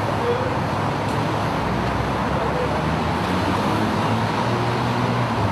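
Steady outdoor street ambience: a low hum and hiss like distant road traffic, with faint voices underneath.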